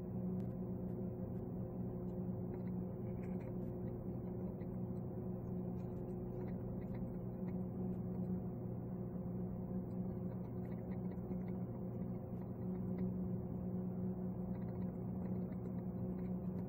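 A steady low hum with several fixed tones, unchanging throughout, with a few faint ticks scattered through it.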